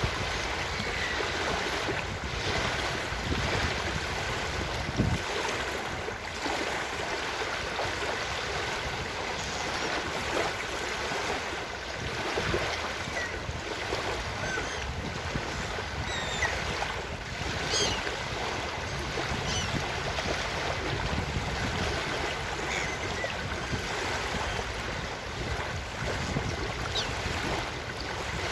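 Ocean surf washing steadily onto a beach, with short, faint seagull calls now and then through the middle and later part.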